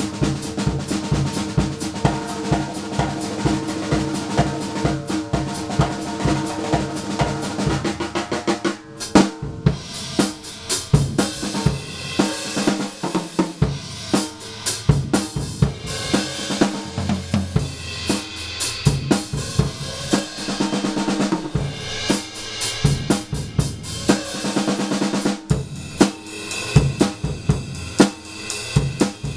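Drum solo on a Sound Percussion acoustic drum kit, still on its stock heads and steel hoops, with Wuhan cymbals: a fast, even run of strokes around the snare and toms for about the first nine seconds, a brief break, then varied fills and beats with cymbals and hi-hat ringing over the drums.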